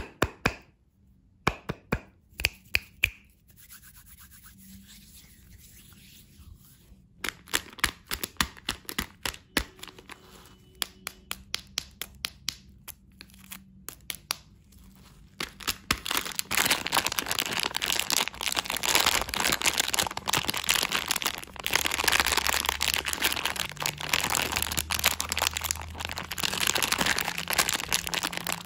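Plastic candy packaging handled by hand: for the first half, scattered sharp clicks and taps as wrapped lollipops are picked up and set down, then from about halfway a steady, dense crinkling as the plastic gummy-worm bag is squeezed and rubbed between the fingers.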